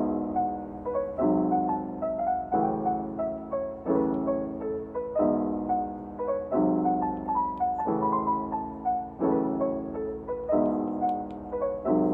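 Background music: a gentle piano playing a repeating pattern, a new chord about every second and a half with short notes above it.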